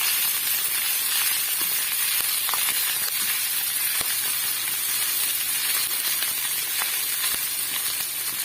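Cooked rice and garlic frying in hot oil in a pan: a steady sizzle, with a few faint light clicks as it is stirred.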